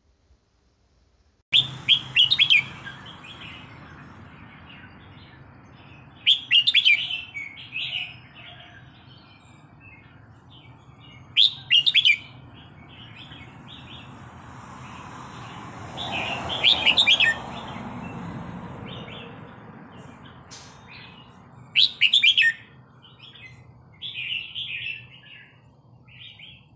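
Red-whiskered bulbul singing: about six short, loud, high-pitched phrases a few seconds apart, the first about a second and a half in.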